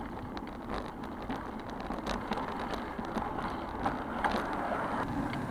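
Bicycle riding on a concrete road: a steady rush of road noise with light, irregular clicks and rattles scattered through it.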